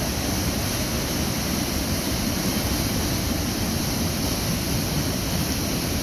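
Steady rushing of the Stieber waterfall, the Pfelderer Bach plunging over rock into a gorge as churning white water.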